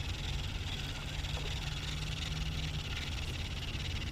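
Steady low rumble and hiss of wind and water on a small boat's open deck, with no distinct strikes or calls.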